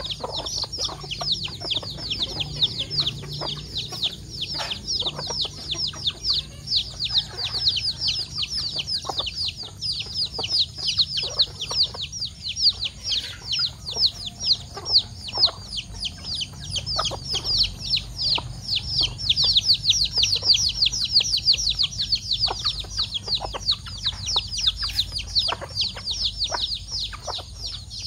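Chicks peeping without a break, many short falling peeps a second, with a hen's short low clucks scattered among them.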